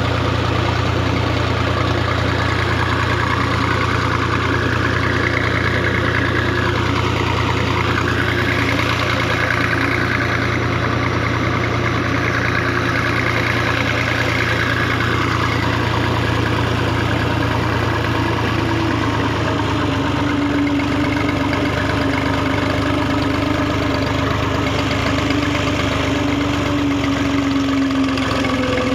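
Massey Ferguson 240 tractor's three-cylinder diesel engine running steadily as the tractor drives across the field, heard close up from the driver's seat. The engine note shifts slightly about two-thirds of the way through.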